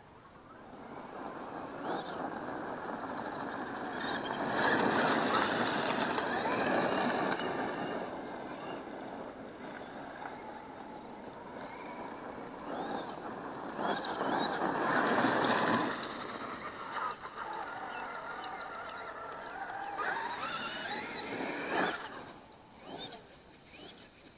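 Traxxas X-Maxx RC monster truck driving, its brushless motor whining up and down in pitch over tyre noise, with two louder surges of acceleration about five and fifteen seconds in.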